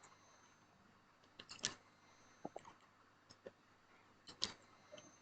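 Sharp plastic clicks from a mechanical keyboard's Outemu hot-swap switches being handled or pressed. Two louder bunches of clicks come about 1.5 s and 4.5 s in, with a few fainter ticks between them.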